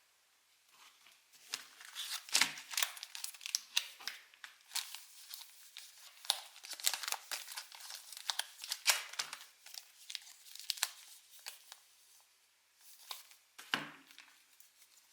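Pokémon TCG booster pack wrappers being torn and crinkled by hand, a busy run of crackling with two dull knocks of handling, one early and one near the end.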